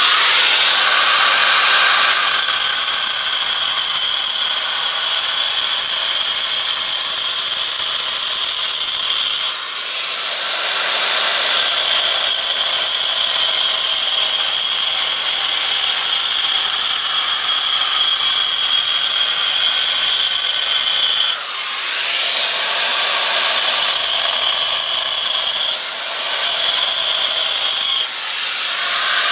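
Handheld angle grinder with a cutting disc running at full speed and cutting into a wall along a marked circle: a loud, steady high whine with grinding. It eases off briefly about a third of the way in and a few times near the end, then bites in again.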